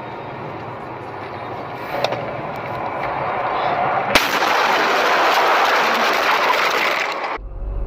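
Car crash heard from the dashcam on a snowy road. Steady road noise with a knock about two seconds in, then a sharp impact about four seconds in, followed by a loud rushing, scraping noise for about three seconds that cuts off suddenly.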